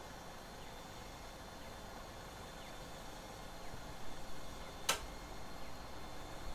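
Quiet interior sound of a Toyohashi Railway 3200-type streetcar: a faint steady hum, with a low rumble building about four seconds in and one sharp click about five seconds in.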